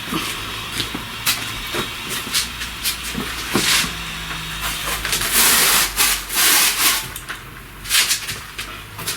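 Scraping, rubbing and knocking of a heavy granite slab being handled and shifted into place on a brick base with tile adhesive, the loudest scraping about five to seven seconds in.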